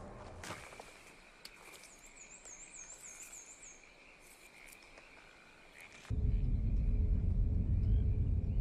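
Forest ambience from a film soundtrack: a steady high insect drone, with a quick run of high bird chirps a couple of seconds in. About six seconds in, a loud low rumble cuts in suddenly and carries on.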